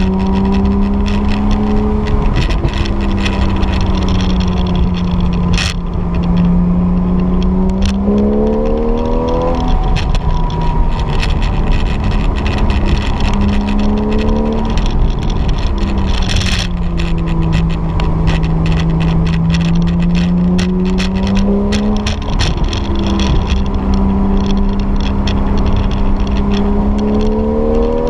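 Porsche 911 GTS's flat-six engine heard from inside the cabin while driving, over steady road noise. Its note climbs in pitch under throttle and falls back several times: about eight seconds in, around fourteen seconds, and again near the end. A couple of short knocks are heard, one around six seconds and one around sixteen seconds.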